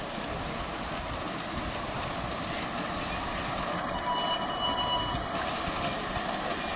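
5-inch gauge miniature steam locomotive hauling a ride-on passenger train, running steadily along the track.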